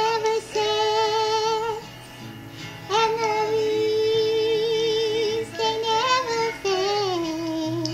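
A devotional song with a high singing voice holding long notes with vibrato over backing accompaniment. The tune dips quieter about two seconds in, and the melody slides down near the end.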